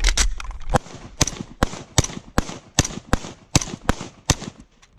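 A Czech VZ 58-pattern semi-automatic rifle in 7.62×39 firing a steady string of about a dozen sharp shots, two to three a second, that stops shortly before the end.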